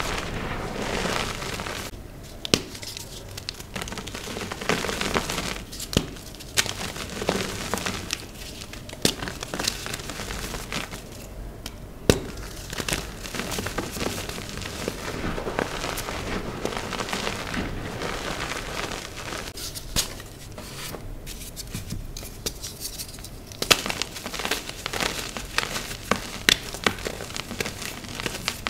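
Block of dyed gym chalk being crushed and crumbled, a steady dry crunching with many sharp crackles and snaps scattered through it.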